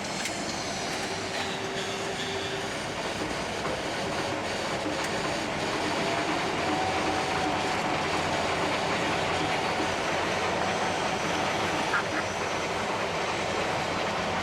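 Gleaner S67 combine running while harvesting: a steady mechanical din of engine and threshing machinery with a whine that rises in pitch and gets a little louder about halfway through, and one brief click near the end.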